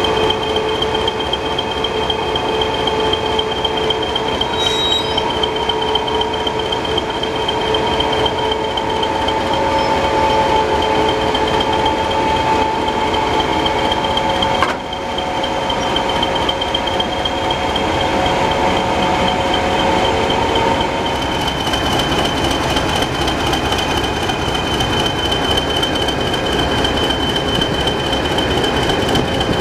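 Heritage diesel locomotive engine idling close by: a steady loud rumble with a constant high whine over it, dipping briefly about halfway through.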